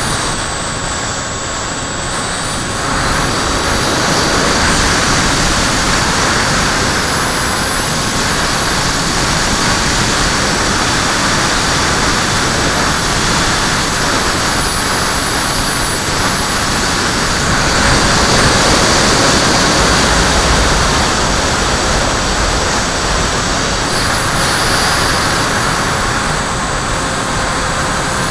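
Wind rushing over the onboard camera's microphone of a HobbyKing Skyfun flying-wing model plane in flight, with the thin steady whine of its electric motor underneath.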